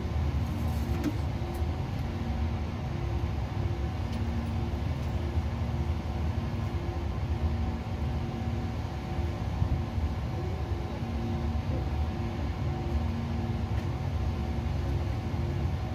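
Steady low mechanical rumble, with a faint hum that breaks off and comes back.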